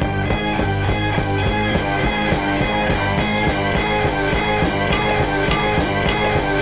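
Instrumental rock music with a fast, steady beat and guitar, no vocals.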